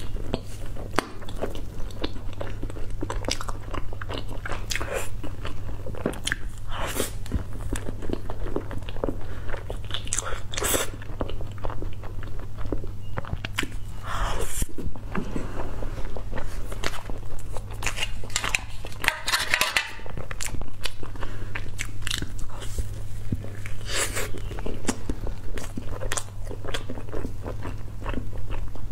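Close-miked biting and chewing of soft sponge cakes with a green cream filling, a dense run of short mouth clicks and smacks. A steady low hum runs underneath.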